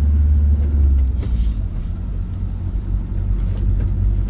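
Motor vehicle running on the road: a steady low engine and road rumble whose note changes about a second in, with a brief hiss just after.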